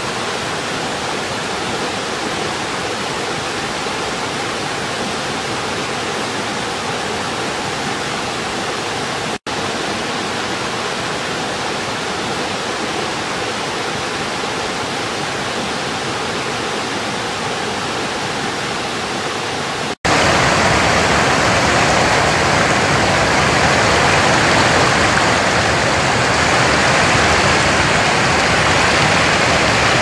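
Steady rush of a rocky forest stream, with a momentary gap about nine seconds in. About twenty seconds in it changes to a louder, brighter rush of water pouring over a weir.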